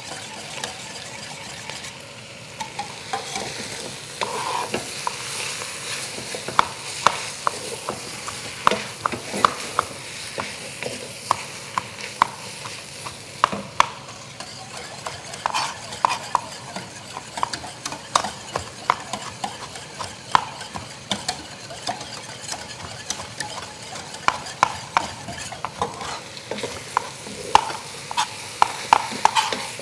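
Chef's knife dicing tomatoes on a cutting board: a long run of sharp, irregular knocks of the blade on the board, over a steady sizzle of chicken frying in a pot.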